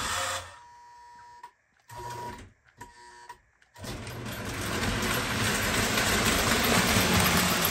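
Postwar Lionel O-gauge steam turbine train running on three-rail track: a steady mechanical whir and rattle of the motor and wheels. It drops out almost to nothing from about half a second in until nearly four seconds, then returns and grows louder.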